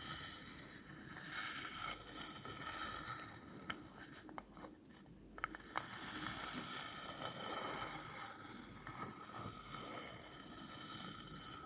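Continuous scratching on an object's surface, with a few sharp taps around the middle.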